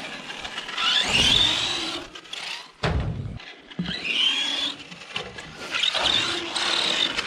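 Kyosho Mad Van 1/10 RC van's brushed electric motor and gears whining up and down in pitch as it speeds up and slows over and over, with a sharp hit about three seconds in, typical of the van landing off a ramp.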